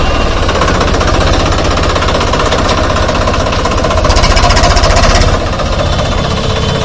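Swaraj 744 FE tractor's three-cylinder diesel engine running hard with a rapid, even knocking beat as the tractor pulls through wet ground. It swells louder for about a second, roughly four seconds in.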